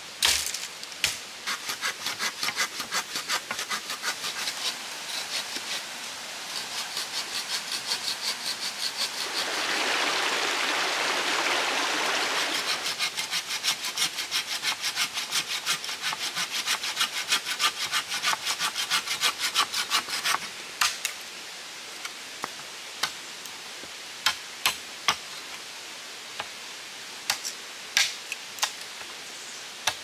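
A machete chop into bamboo at the start, then a hand saw cutting through a green bamboo stalk in quick back-and-forth strokes, about three a second, with a smoother steady stretch in the middle. The sawing stops about two-thirds of the way through, and scattered sharp knocks follow as the bamboo is worked with a machete.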